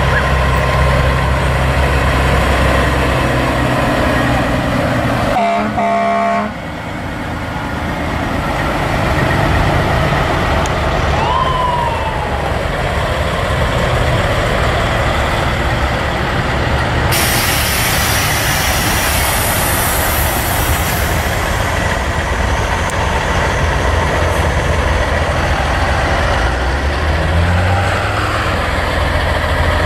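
Diesel semi-trucks driving past one after another, engines running. A short horn blast comes about six seconds in, a brief rising-then-falling whistle near twelve seconds, and a hiss of air a little past the middle that fades after about four seconds.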